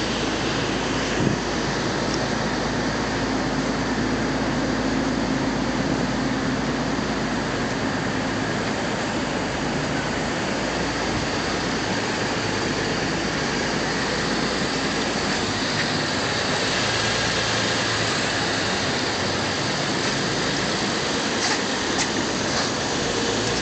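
Twin-turbo Nissan 350Z's V6 idling steadily.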